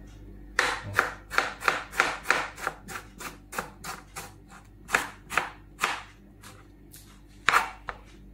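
Kitchen knife slicing through tomatoes and knocking on a plastic cutting board: a quick, even series of cuts, about three to four a second for some six seconds, then a pause and a couple more cuts near the end.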